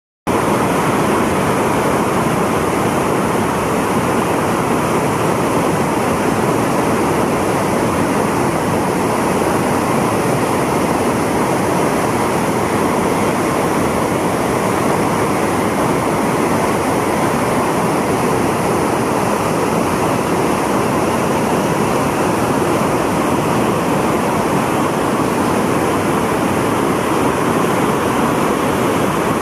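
The Rhine Falls, a wide, powerful river waterfall, roaring with a loud, steady, unbroken rush of water pouring over the rocks.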